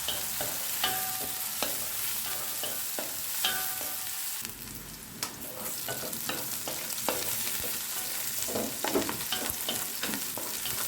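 Onion frying in hot oil, a steady sizzle, while it is stirred, with frequent sharp knocks and scrapes of the utensil against the pan.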